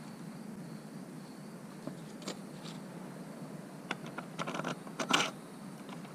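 Scattered clicks and light scrapes of small chainsaw parts being handled, with a cluster of sharper clicks about four seconds in, the loudest just after five seconds, over a steady low hum.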